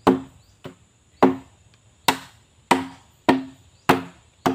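Split bamboo pole struck again and again with a hand tool, about once every 0.6 seconds, to knock off the nodes. Each blow is a sharp knock with a brief ring.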